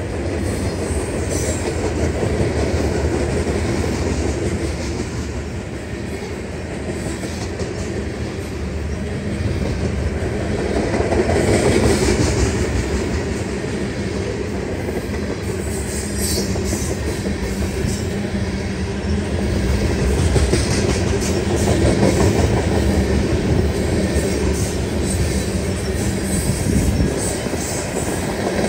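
A train rolling past close by: a steady rumble of rail cars with wheels clicking over the track, unbroken throughout.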